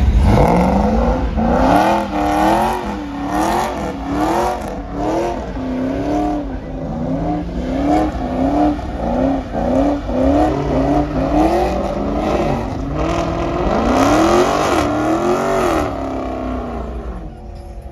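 Car engine revving hard, its pitch swinging up and down over and over with tyre squeal, as when a car is spinning its wheels. It drops away near the end.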